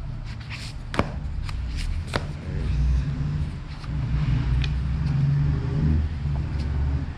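A car's engine rumbling nearby as it pulls up, swelling from about two and a half seconds in and holding steady. Book pages and covers are flipped and handled, with light clicks and rustles early on.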